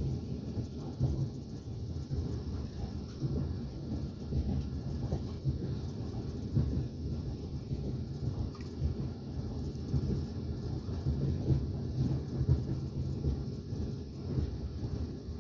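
A moving train heard from inside the carriage: a steady low rumble of the wheels on the rails, with frequent irregular knocks and rattles.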